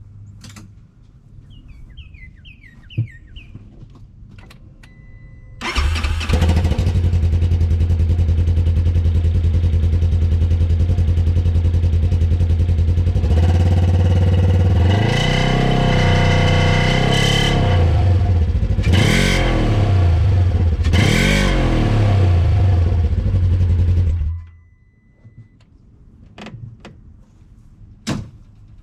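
2015 Polaris RZR 900's parallel-twin engine through a new SLP dual-outlet aftermarket exhaust, with a deep, low-pitched note. It starts about six seconds in, idles, is revved up and down several times, then shuts off suddenly near the end. Before it starts there are a few faint clicks and chirps.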